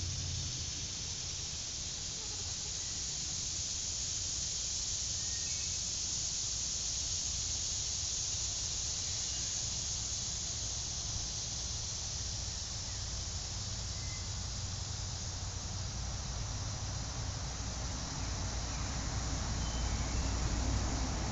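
Outdoor woodland ambience: a steady, high-pitched drone of insects over a low rumble of road traffic that grows louder near the end, with a few faint bird chirps.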